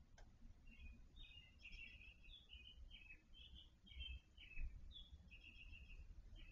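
Faint songbird chirping: a run of short, varied notes lasting about five seconds, over a low rumble.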